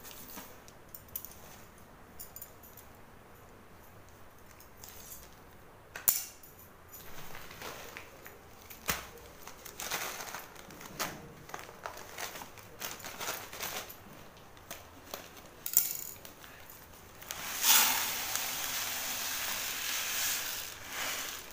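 A plastic packet of sugar is rustled and a clear plastic jar is handled, with a few sharp clicks. About 17 seconds in comes a steady hiss lasting a few seconds as granulated sugar pours from the packet into the jar.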